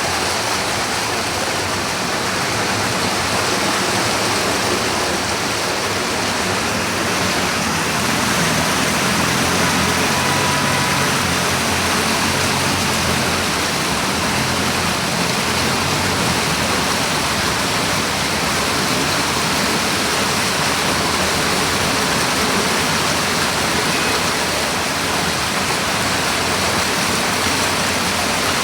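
Fast-flowing floodwater rushing, loud and steady.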